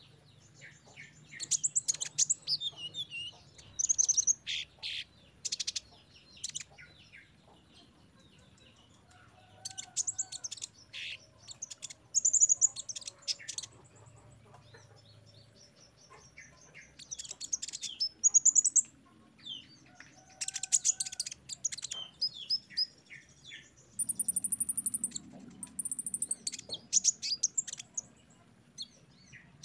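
A sunbird (kolibri ninja) singing in rapid bursts of high-pitched chirps, trills and short whistled phrases, with brief pauses between the clusters.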